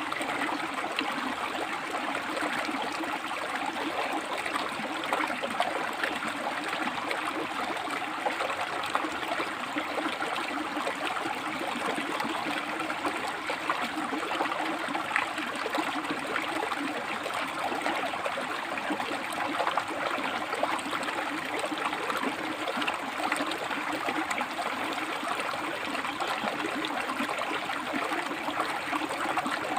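River water flowing and splashing over and between rocks, a steady rushing with fine gurgling detail.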